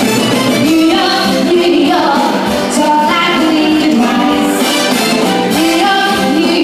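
Woman singing a held, gliding melody line into a microphone over loud backing music, a live cabaret vocal performance.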